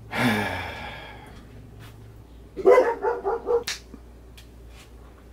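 Dog vocalizing: a loud cry falling in pitch at the start, then a quick run of about five short barks about two and a half seconds later, followed by a sharp click.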